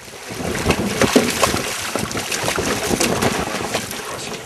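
Hooked yellowtail kingfish thrashing at the surface alongside a boat: irregular splashes over a steady rush of sea water and wind on the microphone.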